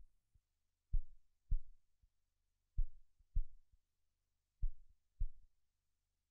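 Heartbeat sound: slow, steady double thumps (lub-dub), three beats about two seconds apart.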